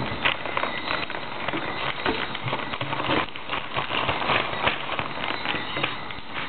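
Wrapping paper crinkling and rustling as a small child handles it: a dense, irregular run of sharp crackles.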